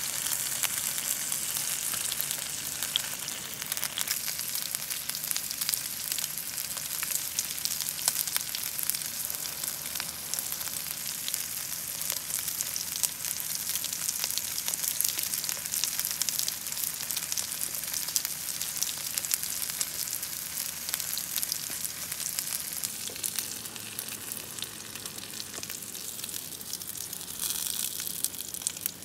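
Meat and chives sizzling in a frying pan on a camp stove: a steady hissing fry full of small spattering pops, easing off for a few seconds near the end before picking up again.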